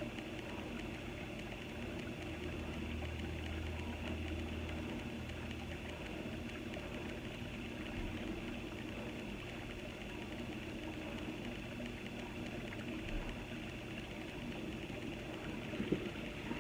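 Quiet room tone: a faint, steady low hum with a light hiss, and a soft tap near the end.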